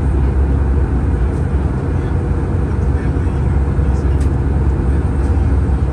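Cabin noise of an Airbus A319 airliner in cruise: a loud, steady, deep rumble of engines and rushing air.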